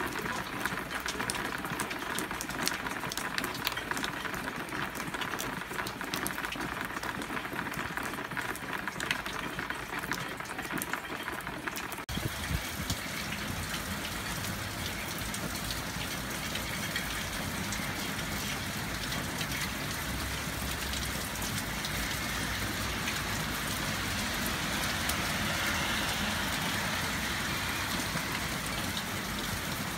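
Heavy rain splashing on a flat wet surface, with many sharp individual drop impacts. About twelve seconds in it changes to a steadier, fuller rush of hard rain.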